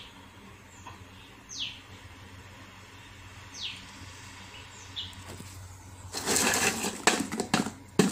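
A bird calling: short high notes that slide downward, repeated about every two seconds. About six seconds in there is a loud burst of rustling noise lasting over a second, then a few sharp clicks.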